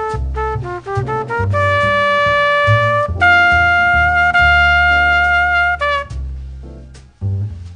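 Jazz background music: a brass lead plays short notes climbing in pitch, then two long held notes, over a bass line that moves note by note.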